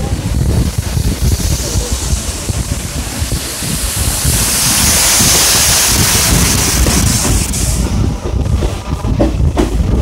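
Moving passenger train heard from an open coach doorway: a steady rumble of wheels on the track with wind buffeting the microphone. The rush of a waterfall close beside the line swells for a few seconds in the middle and fades before the end. A few sharp clicks from the wheels come near the end.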